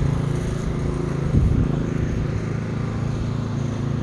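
A motor running steadily, a constant low hum with a brief knock about a second and a half in.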